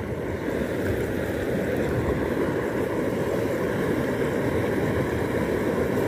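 Steady low rushing of a small stream's flowing water.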